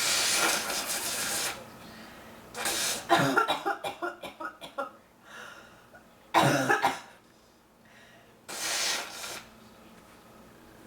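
A woman with bronchitis coughing in several bouts, including a quick run of about eight short coughs, then single harsher coughs. It is a chest cough that she puts down to bronchitis.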